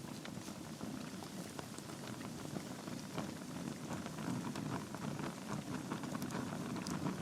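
Wood fire burning in a fireplace: logs crackling with many small quick pops over a steady low rush of flame.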